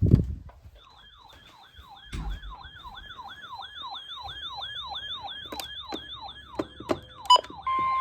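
Electronic siren in a fast yelp, its pitch swooping up and down about three times a second. There is a heavy thump at the start and another about two seconds in. Just before the end a steady single alert tone begins under the siren.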